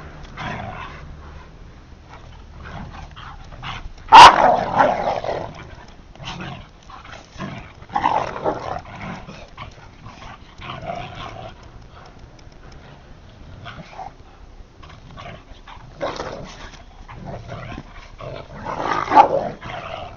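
Two dogs, a Rottweiler and a Siberian husky, play-fighting and vocalizing in short, irregular bursts. The loudest burst comes suddenly about four seconds in, with another strong cluster near the end.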